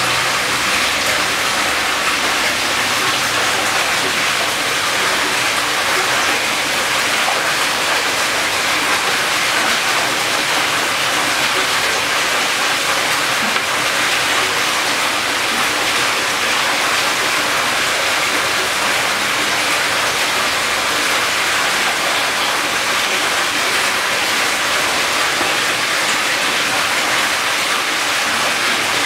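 Aquarium aeration: a dense stream of air bubbles rising through the tank water, making a steady, even rushing hiss.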